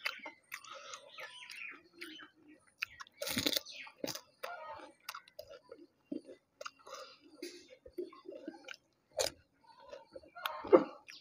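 A person eating fuchka (pani puri) up close: crisp puffed shells cracking between the teeth and wet chewing of shells filled with tamarind water. The loudest crunches come about three seconds in and near the end.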